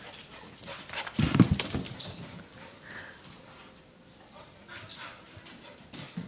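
A dog excited at the word "walk" whining and moving about, with a few loud thumps a little over a second in.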